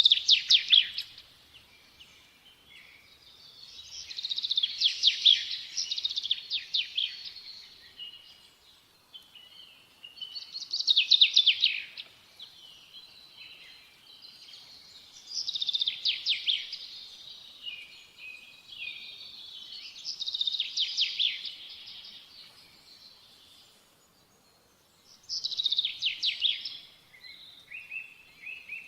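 A songbird singing: bursts of fast, high trills and twitters about every five seconds, with softer chirps between the phrases.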